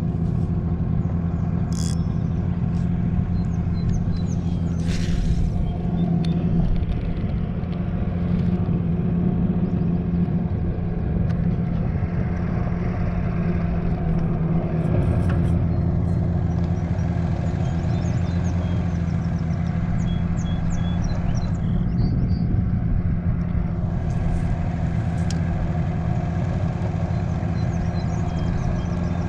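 Small boat's outboard motor running steadily at an even pitch, with a few faint clicks over it.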